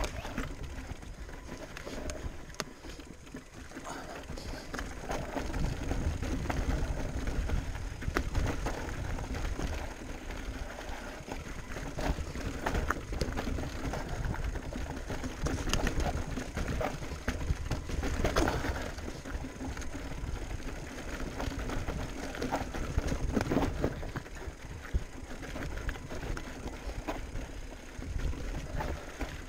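Commencal Meta Power electric mountain bike ridden over a trail: wind rumbling on the microphone, with a steady stream of clicks and rattles from the tyres and bike over rough ground, and a faint steady hum.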